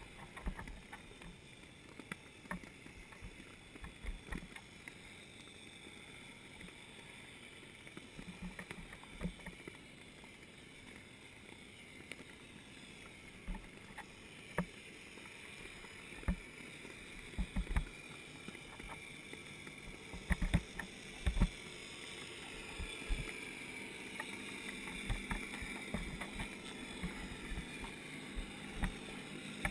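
Muffled underwater sound picked up by a submerged camera: a steady hiss with scattered low knocks and clicks, more of them about two-thirds of the way through.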